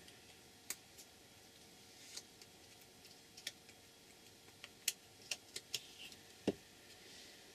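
Faint, scattered light clicks and taps of paper and craft supplies being handled on a tabletop while a small card is glued down, with a soft low thump near the end.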